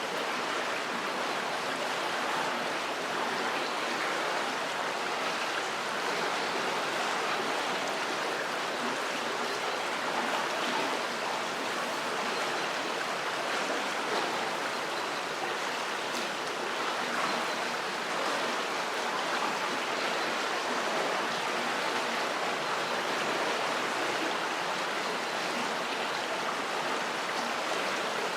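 River water flowing under a bridge: a steady, even rushing of water.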